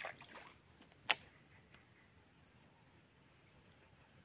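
Faint ambience with a steady high-pitched insect drone, and one sharp click about a second in.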